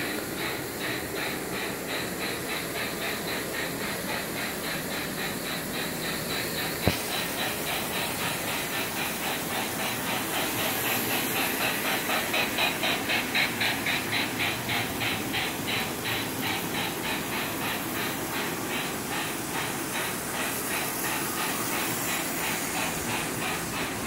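Tyco Sound of Steam box car giving out a rapid, even chug-chug of hissing chuffs over the running clatter of model trains on the track. The chuffing swells as the train passes close, about halfway through, and there is one sharp click about seven seconds in.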